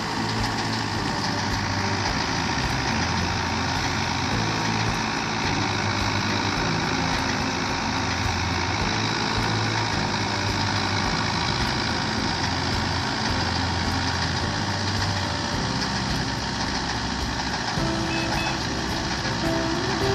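Wheat-threshing machinery running with a loud, steady din.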